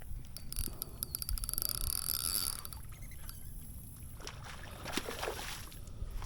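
Fishing reel clicking rapidly for about two seconds over a low steady rumble, with a short rushing noise about four to five seconds in.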